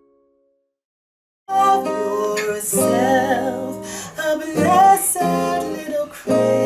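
A held chord fades out, then after about a second of silence strummed acoustic guitar starts a gospel song, with a singing voice wavering over it.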